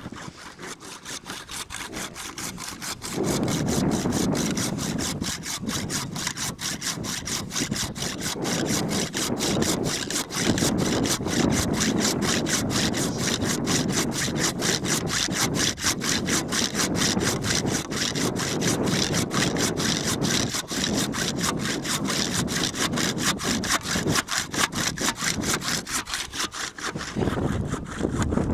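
A hand saw cutting with quick, even back-and-forth strokes through the antler of a downed reindeer bull, over a low rumble that rises about three seconds in.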